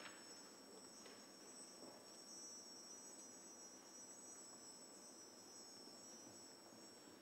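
Faint, high-pitched steady tones, several held together like an insect trill, in a hushed passage of a contemporary ballet score, with a soft tap at the start and another about a second in.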